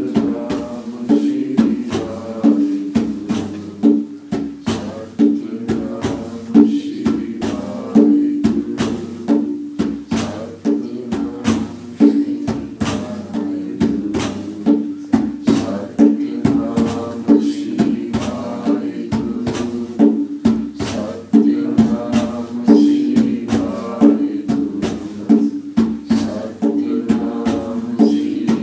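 Live devotional music: a small plucked string instrument playing over a hand drum and a tambourine-style frame drum beaten in a steady rhythm.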